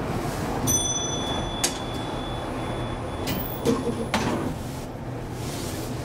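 Inclined elevator's sliding car doors closing: a thin high steady tone sounds for a couple of seconds, with several sharp clunks, over a steady low hum.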